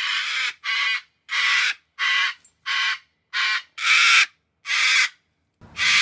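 Cockatoo screaming: about nine harsh, loud screeches in a row, each about half a second long, roughly one every two-thirds of a second.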